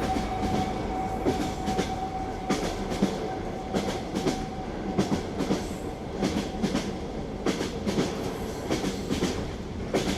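Train wheels running on rails: a steady rumble with an uneven clickety-clack of knocks as the wheels pass over the rail joints.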